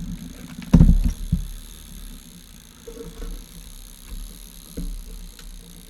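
Dull low thumps and knocks of handling, the loudest about a second in, followed by a few fainter bumps over a low hum.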